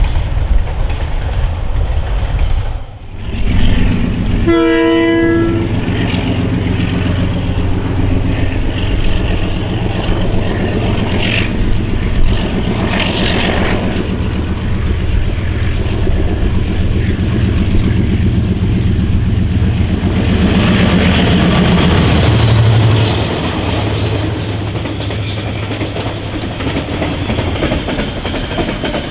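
Freight train wagons running past, then one horn blast of about a second from a KiwiRail freight train. Its three DX-class General Electric diesel locomotives run hard in a high notch as they come up and pass, loudest about twenty seconds in, then container wagons clatter by over the rail joints.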